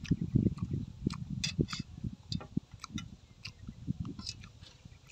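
Close-up chewing of cow intestine soup: wet mouth smacking and quick clicks, busier at first and thinning out toward the end.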